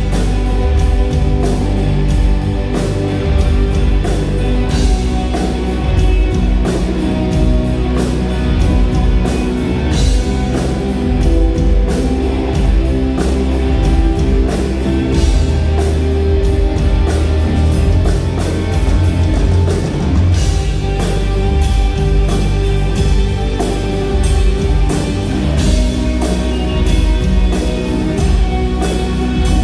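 Live rock band playing loudly: electric guitars, keytar and drum kit, with a steady driving drum beat.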